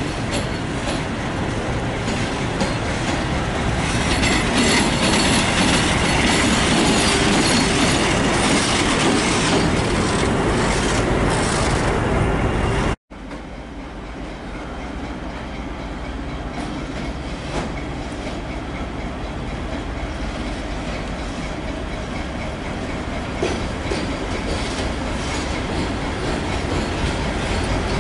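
SM31 diesel shunting locomotive running under power on the station tracks, its diesel engine and wheels on the rails giving a steady rumble. The sound cuts off abruptly about halfway through and resumes with the locomotive growing steadily louder as it approaches.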